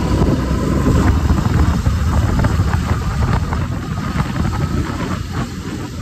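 Wind buffeting the phone's microphone on a moving motorcycle, a loud, steady, rough rush with motorcycle and road noise under it.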